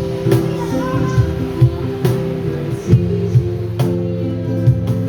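Live band music: guitar chords played over a steady drum-kit beat.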